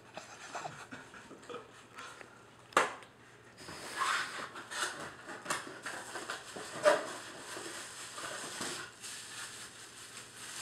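Cardboard packaging of a camera box being handled, with a sharp knock about three seconds in. Then a stretch of rustling and crinkling from the plastic bag wrapped around the camera body as it is lifted out.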